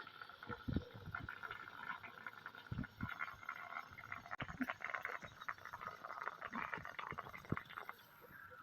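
Water with garlic, ajwain and salt bubbling on the heat in a small pan: a steady run of small irregular pops and crackles.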